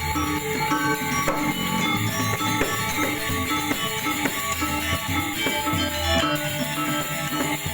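Balinese gamelan ensemble playing: bronze metallophones ring out quick repeated notes over a deep gong tone that comes back every second or so.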